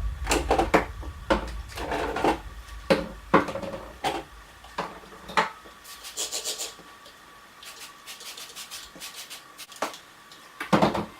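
Household items being handled during cleaning: irregular knocks and clatter, with a short rubbing sound about six seconds in.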